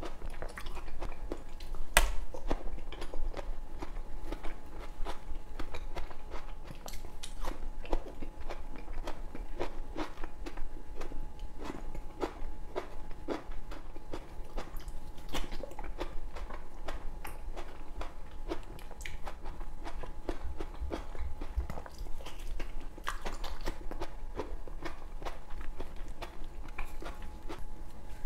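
Close-miked biting and chewing of raw sliced tomatoes sprinkled with stevia, with many small sharp clicks throughout.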